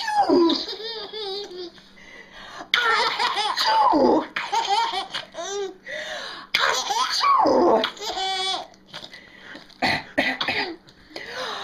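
An adult's fake coughs, repeated several times, each answered by a baby's laughter and high squeals.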